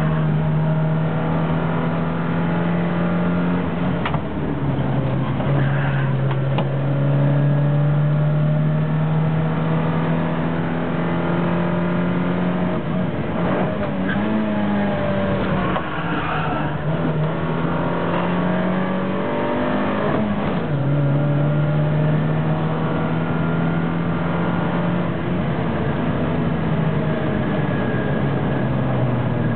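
Hillman Imp's rear-mounted four-cylinder engine under hard acceleration, heard from inside the cabin: the revs climb steadily in each gear and the pitch drops at upshifts about four seconds in and again about twenty seconds in, with the revs dipping and recovering around the middle.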